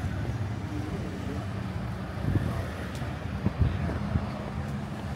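Road traffic: car engines running and passing steadily, with a few short low thumps about two and a half and three and a half seconds in.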